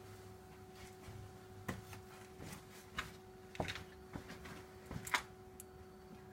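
Mazda 3 automatic transmission knocking: a few sharp, irregular knocks over a steady hum. The owner reports that this knock comes on when coasting and disappears under throttle.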